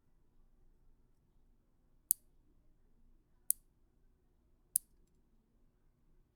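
Nail clipper snapping shut three times: short, sharp, high clicks a little over a second apart.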